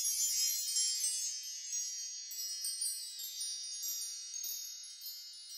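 A high, shimmering chime sound effect: many small bell-like tones ringing together with little twinkles on top, slowly fading away.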